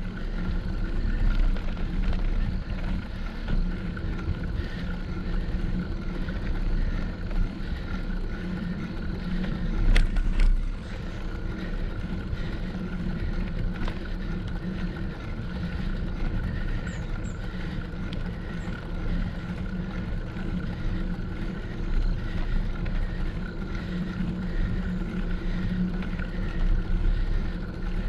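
Bicycle riding noise picked up by a GoPro action camera: wind rumbling on the microphone and tyre noise on the road, steady throughout, with one sharp knock about ten seconds in.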